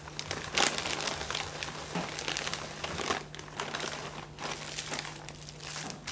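Plastic bags crinkling and rustling in irregular bursts as they are handled and set down on a table, over a steady low electrical hum.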